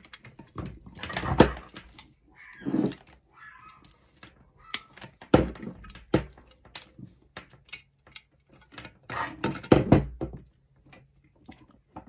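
Hands twisting stiff cable cores and working them into a plastic light-switch housing, with pliers handled: irregular clicks, scratchy rustling and knocks. A few louder knocks come about a second and a half in, around five seconds in and near ten seconds.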